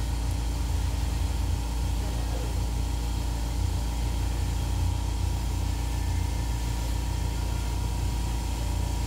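Steady low hum of a running motor, with a few constant tones above it.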